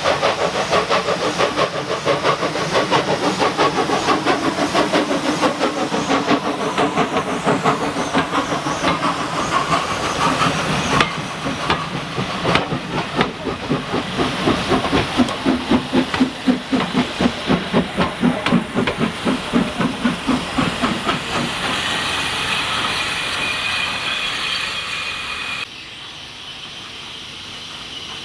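Steam locomotive working, its exhaust beating in a quick, even rhythm, then a steady hiss of steam over the last few seconds; the level drops suddenly about three seconds before the end.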